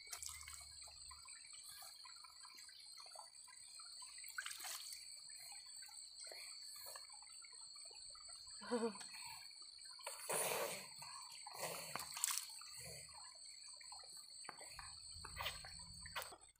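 Water splashing and dripping in a few short bursts as a toddler is washed by hand with water from a shallow stream pool.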